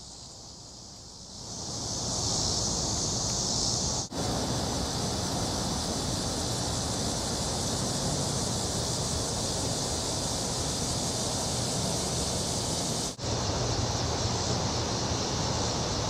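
Steady high-pitched drone of cicadas in the background, fading in over the first two seconds over a broad, even hiss, and dropping out briefly twice.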